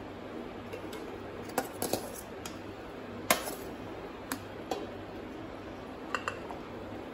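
Metal spatula and ladle clinking and scraping against steel bowls as cooked basmati rice is scooped and spread into a metal pot: a scattered string of sharp clinks, the loudest about three seconds in, over a low steady hum.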